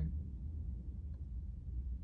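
A pause with only a low, steady background rumble and a faint tick about a second in.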